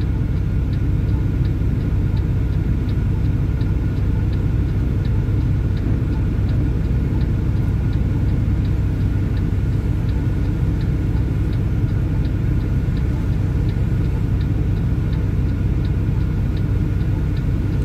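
Semi truck's diesel engine idling, heard from inside the cab: a steady low rumble, with a faint regular ticking about twice a second.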